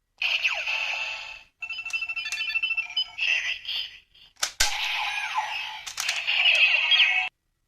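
Electronic toy-like jingle and sound effects in several short stretches, with steady beeping tones and sliding pitches and a sharp click midway, cutting off suddenly near the end.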